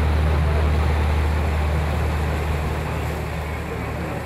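Boat engine running steadily: a constant low hum over a wash of noise, easing off slightly near the end.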